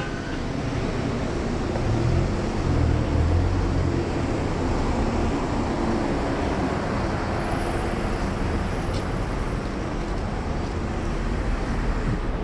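City street traffic noise, a steady hum of passing cars, with a heavier engine rumble swelling about two to four seconds in.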